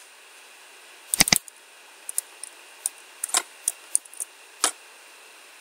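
Computer mouse and keyboard clicks: a quick pair of clicks about a second in, then scattered single key and button clicks over a faint steady hiss.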